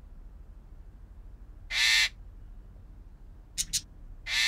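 Bird squawking: two harsh, raspy calls about two and a half seconds apart, with two quick high chirps just before the second.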